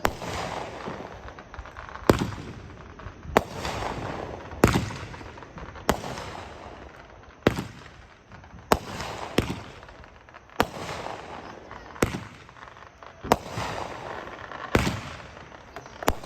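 Consumer firework cake (Dominator 2 Min Block Party) firing a steady barrage of shots: a loud bang about every second and a half, each trailing off into crackle and echo.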